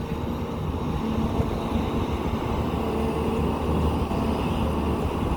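Diesel engine of a JCB 3DX backhoe loader running steadily with a low, even drone.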